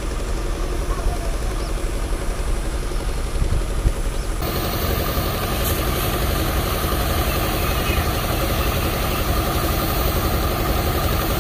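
Heavy truck diesel engine running steadily. About four seconds in the sound changes abruptly, getting a little louder with more hiss on top.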